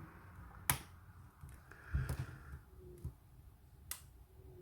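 Lock-picking tools working inside a Scandinavian oval lock: two sharp metallic clicks, about a second in and near the end, over faint handling noise.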